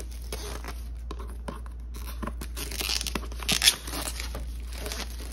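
Protective plastic wrap being torn and peeled off a cardboard box, crinkling and tearing, with the loudest rip about three and a half seconds in.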